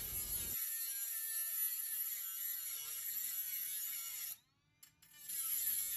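Small handheld cordless power tool buzzing as it cuts through the bike's metal folding-stand bracket, its pitch wavering under load. It cuts out for about a second near the end, then starts again.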